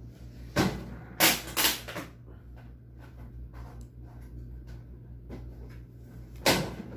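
Items being shifted about inside a packed box: a short sharp rustle-and-knock about half a second in, a cluster of them between one and two seconds, and one more near the end, over a steady low hum.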